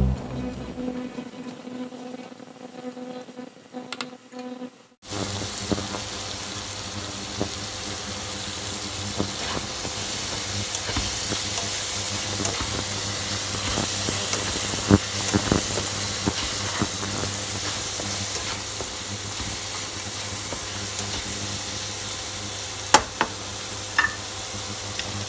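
Sliced mushrooms frying in butter in a nonstick pan: a steady sizzle starts suddenly about five seconds in. A spatula stirs them, clicking against the pan now and then.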